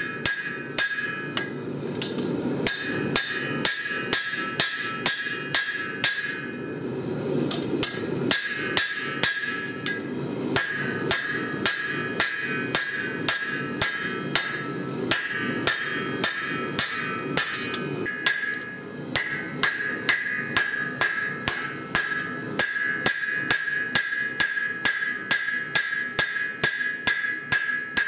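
Hammer blows on red-hot lawnmower-blade steel on an anvil, forging it into a cleaver: a steady run of about two to three strikes a second, with the anvil ringing between blows and brief pauses a few times.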